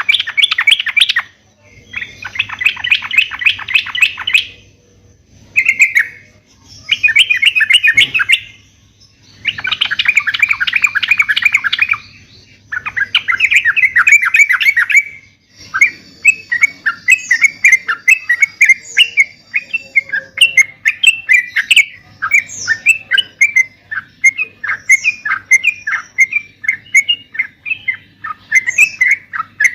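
Yellow-vented bulbuls (trucuk) singing: loud, rapid chattering phrases of a second or two each with short pauses, then, about halfway through, a run of quick separate notes several to the second.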